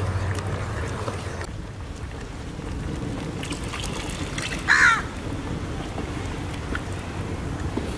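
Wooden spatula stirring and scraping thick cashew gravy in a metal pot, with scattered light knocks. About halfway through comes one short, loud, pitched squawk.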